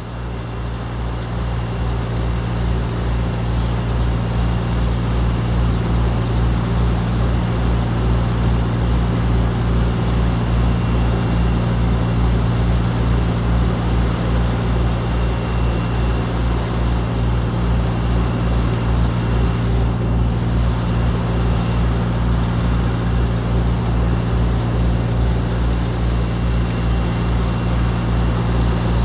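A fire apparatus's diesel engine running steadily at a constant speed, with a deep, even pulse and a constant rushing noise over it.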